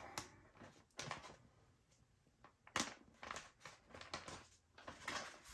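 Faint, irregular crinkling and crackling of a vinyl decal being peeled by hand from its paper backing, with the sharpest crackle about three seconds in.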